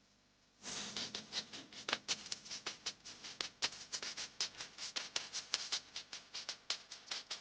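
Close-miked eating of arroz valenciana: a rapid, irregular run of small wet clicks, several a second, starting about half a second in.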